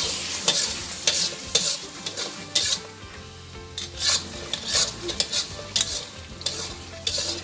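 A metal spatula scrapes and stirs thick mutton masala around a karahi (wok), in irregular strokes about once or twice a second, over the sizzle of hot ghee. This is the bhuna stage, where the ghee has begun to separate and rise out of the masala on high heat.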